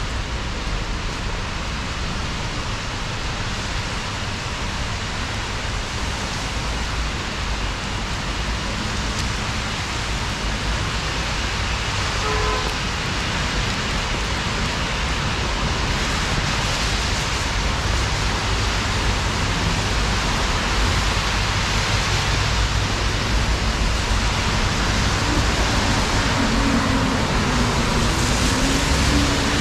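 Steady hiss of heavy rain on a wet city street, with rain striking the camera. In the last few seconds a low wavering hum of passing traffic joins it.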